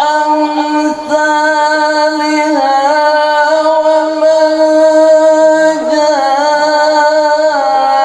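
A qari's voice in melodic Quran recitation (tilawah), holding one long ornamented note that steps between pitches a few times.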